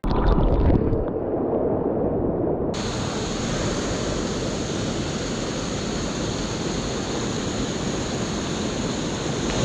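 Creek water rushing steadily over rocks, muffled for the first few seconds and then clear.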